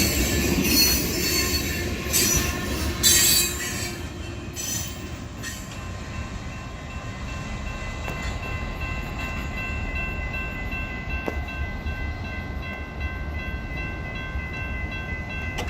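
Freight train cars rolling past: loud, repeated clatter of the wheels over the rail joints for the first few seconds, then a steady high-pitched wheel squeal as the cars keep moving by.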